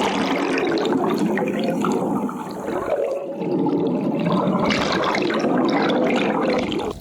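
Water rushing and splashing steadily, easing briefly about two and a half seconds in.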